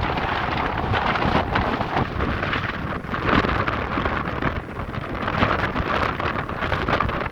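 Strong, gusty sea wind buffeting the microphone, a loud rough rushing that swells and falls in gusts.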